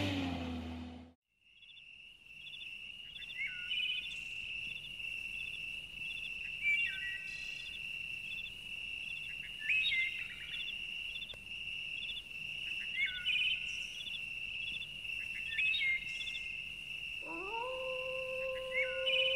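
A low hum cuts off about a second in. A steady high tone follows with short chirping calls over it, and near the end comes a long canine howl that rises, holds and then falls away.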